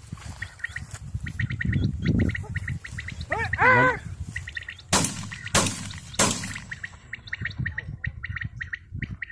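Birds chirping in short repeated runs throughout, with a loud wavering cry about three and a half seconds in. Then come three sharp cracks about half a second apart.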